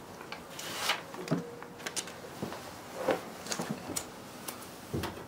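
Handling a sheet of Kilmat foil-faced butyl sound deadener and peeling off its backing paper: irregular crinkles, rustles and light clicks.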